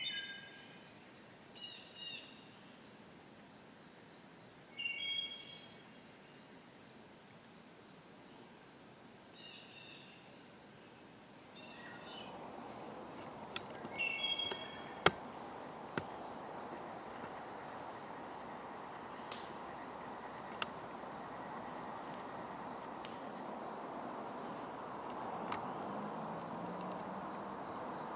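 A steady, high, one-pitch insect drone in summer woodland, with a bird calling in short bursts of a few stacked notes every few seconds through the first half. From about halfway a broad rustling hiss rises, with a few sharp clicks, the loudest about halfway through.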